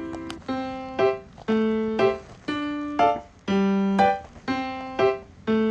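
Background music: a melody of piano or electric-piano notes, struck about two a second, each note fading before the next.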